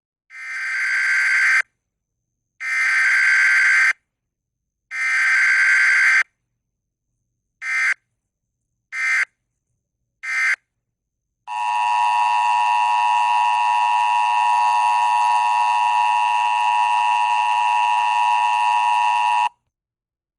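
Emergency Alert System tones: three long, screeching SAME digital header bursts and then three short bursts. These are followed by the steady two-tone EAS attention signal, held for about eight seconds before it cuts off.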